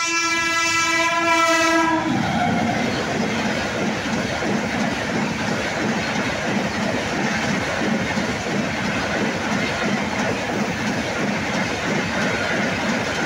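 Tejas Express train sounding one long horn blast that stops about two seconds in, then its coaches running past at medium speed with steady rumbling and rhythmic wheel clatter over the rails.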